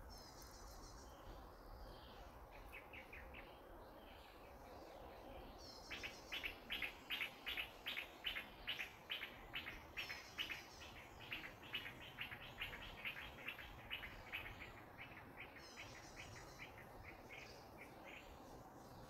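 A bird calling a long run of short, repeated notes, about three a second, starting about six seconds in and fading out near the end. Short, high insect trills come in a few times over faint outdoor background noise.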